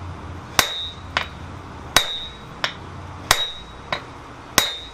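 Sledgehammer blows struck onto a handled top tool held on red-hot steel, driving a depression into a swage block being forged. Four heavy strikes come about 1.3 seconds apart, each with a brief metallic ring, and there is a lighter knock between each pair.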